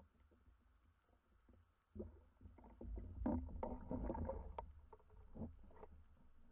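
Water splashing and sloshing at the surface, heard from just underwater, as a spearfisherman handles his speargun and a speared fish; a burst of splashes and small clicks starts about two seconds in and dies away near the end.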